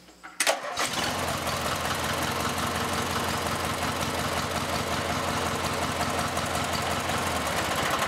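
Briggs & Stratton twin-cylinder riding-mower engine cranked by its starter and catching within about a second, then running steadily: the newly fitted starter solenoid is working.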